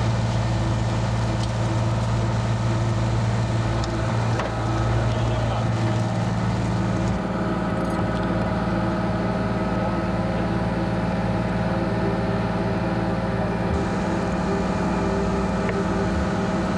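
A motor running steadily, a continuous low hum whose tone shifts a little about seven seconds in.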